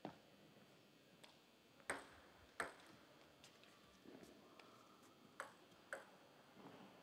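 Plastic table tennis ball bouncing between points: about five short, sharp clicks, the louder ones coming in two pairs a little over half a second apart, over a quiet hall.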